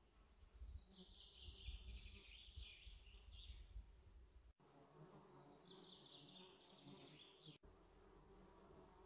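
Faint summer forest ambience: two high buzzing trills lasting a few seconds each, over a low rumble that stops about four and a half seconds in.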